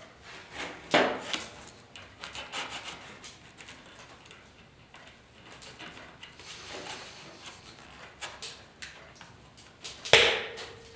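Cardboard template being bent and creased by hand: rubbing and rustling with small knocks. A single sharp knock that rings on briefly comes near the end.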